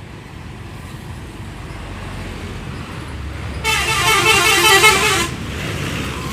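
Bus engine rumbling, then about halfway through a telolet horn (a multi-trumpet musical air horn) sounds for about a second and a half, playing quickly alternating notes over the engine.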